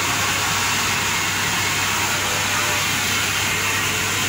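Steam locomotive standing at rest, giving off a steady hiss of escaping steam over a low, even hum.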